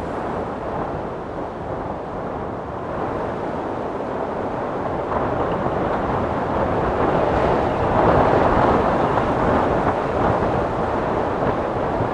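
Steady rushing of wind and a vehicle driving through a blizzard. It grows louder about five seconds in and is loudest a few seconds later.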